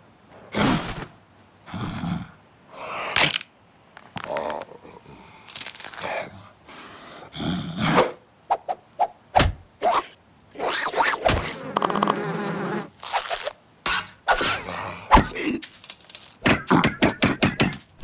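Cartoon slapstick sound effects: a string of separate thunks, scrapes and whacks, with a few short grunting or squeaking creature noises between them. Near the end comes a fast run of clicks, several a second.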